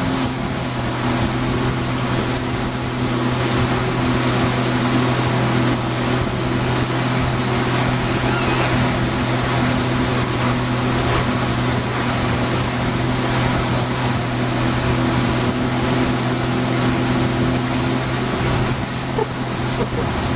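Towing motorboat's engine running steadily at speed, with the rush of its wake and wind over the microphone.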